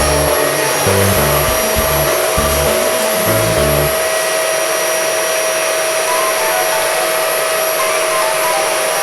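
Upholstery-cleaning vacuum running steadily, a loud rushing air noise with a constant high motor whine. Low music plays under it and stops about four seconds in.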